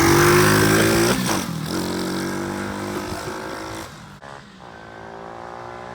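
Small 110 cc single-cylinder four-stroke engine of a Tao Tao DB14 pit bike revving as it is ridden, loudest in the first second, then running steadily and fading about four seconds in.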